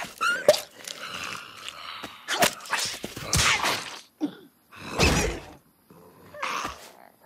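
Cartoon slapstick sound effects: short squawks and grunts from the animated characters, quick swishes, and a heavy thud about five seconds in.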